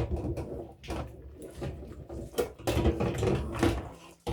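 Plastic fan parts knocking and clattering as they are handled and washed in a sink, in a series of irregular knocks.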